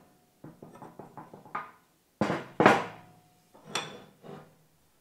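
Knocks and clanks from a rust-seized Record No. 5 cast-iron bench vise being worked by hand: the screw handle knocking in its boss and the stiff sliding jaw being rocked and shoved. There are several separate knocks, some with a short metallic ring, and the loudest come about two and a half seconds in.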